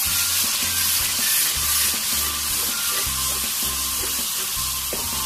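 Spiced tomato masala sizzling in hot oil as yogurt is stirred into it with a slotted spoon. Background music with a steady bass beat runs underneath.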